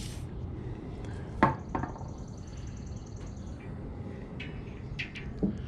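Sharp metal knocks and clicks from tools being handled on a sawmill blade while its carbide inserts are changed: one loud knock about a second and a half in, a second lighter one just after, and a few small clicks near the end.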